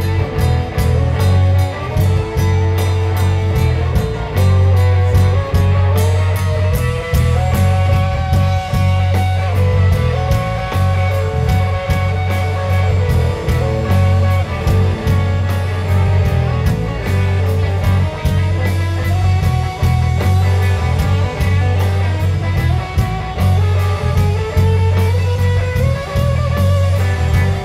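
Live rock band playing: an electric guitar melody with sliding notes over bass guitar and a steady drum-kit beat.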